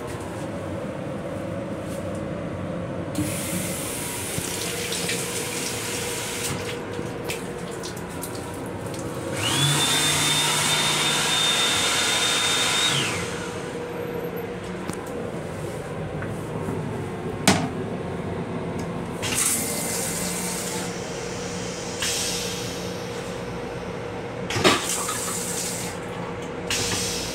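A railcar restroom sink's fixtures run in short bursts: a hiss, then a louder burst with a steady high whine about ten seconds in, over the train's steady running hum. Two sharp knocks come later.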